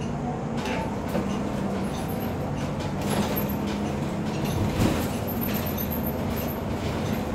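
Interior of a moving city bus: steady engine drone and road noise, with occasional short clatters.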